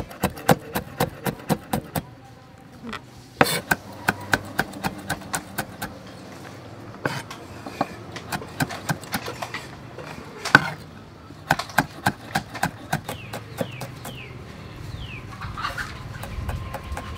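Large kitchen knife chopping red chillies and herbs on a round wooden chopping block: quick, even knocks about four to five a second, in runs of a few seconds with short pauses between. A few short falling chirps come in near the end.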